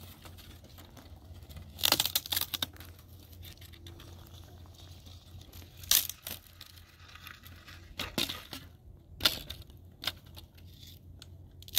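Dry sticks and brushwood cracking and rustling as they are gathered off dry ground, with a few sharp snaps spread through.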